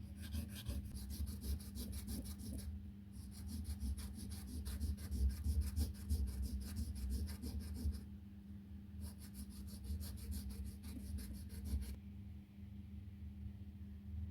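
A metal coin ring being sanded or filed by hand in quick, even back-and-forth strokes, several a second, in three runs with short pauses about three and eight seconds in, stopping about twelve seconds in.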